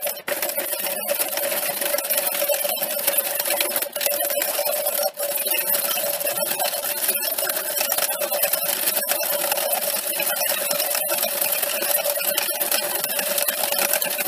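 Electric hand mixer's twin beaters whipping eggs in a plastic bowl: a steady motor whir with small clicks of the beaters against the bowl, dipping for a moment a few times.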